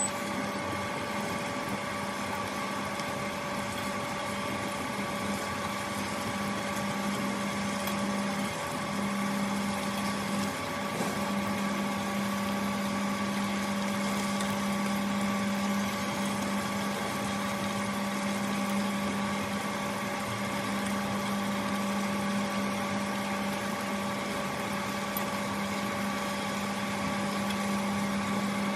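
Steady electric hum of a portable induction cooktop and its cooling fan, with a low tone that drops out briefly twice about a third of the way through.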